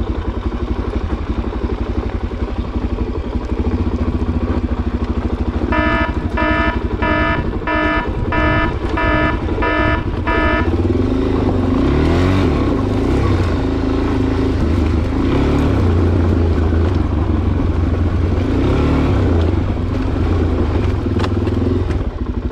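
Suzuki DR-Z400SM's single-cylinder four-stroke engine running as the motorcycle rides a rough dirt track, its revs rising and falling repeatedly in the second half. Midway, a beeping tone sounds about twice a second for about five seconds.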